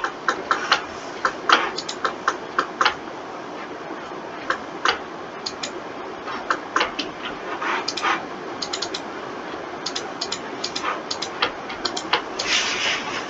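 Irregular clicking of a computer mouse and keyboard, sometimes several clicks in quick succession, sometimes pauses of a second or two, over a steady background hiss. A longer rustling swell comes near the end.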